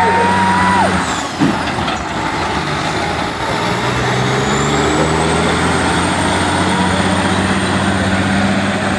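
Semi truck's diesel engine running hard under load while pulling a weight sled, its pitch shifting in steps. A high whine rises about four seconds in and then holds.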